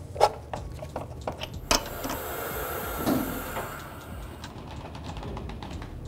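A few sharp metal clicks, then a steady hiss of about two and a half seconds with a dull knock in the middle, as the two-post car lift lowers the vehicle onto its tires.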